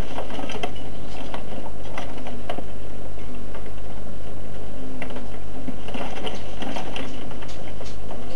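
Horse-drawn wooden cart rattling and clattering as it rolls over rough ground: irregular clicks and knocks, busiest near the start and again about six to seven seconds in, over a steady low hum.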